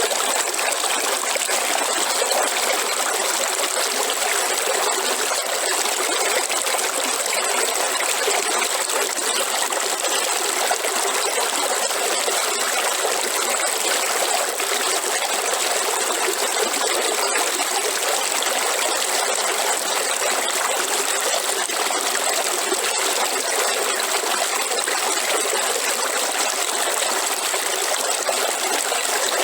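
River water flowing and trickling over stones in a steady, unbroken rush, with no low rumble.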